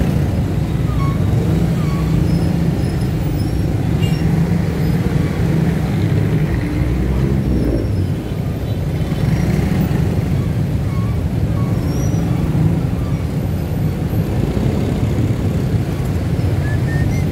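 Slow, congested city traffic heard from a motorcycle in the thick of it: a steady low rumble of idling and crawling engines. Faint short high tones come now and then.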